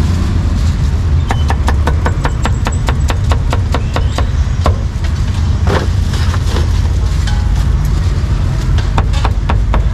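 Steel cleaver slicing cucumber on a wooden chopping block: a quick run of knocks, about five a second, starting about a second in and lasting about three seconds, then a few scattered knocks. Under it, a steady low rumble of street traffic.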